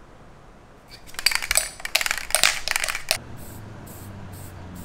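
Aerosol clearcoat spray can being shaken, its mixing ball rattling in a quick run of clicks for about two seconds. Then short hissing spray bursts, about two a second, as the clear coat goes on.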